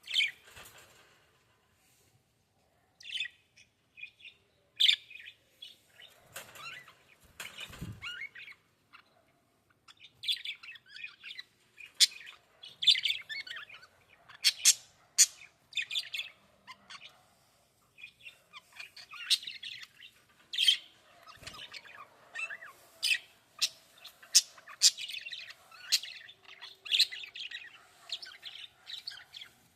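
Small birds chirping and tweeting in quick, irregular short calls, sparse at first and thicker from about ten seconds in, with a low thump about eight seconds in.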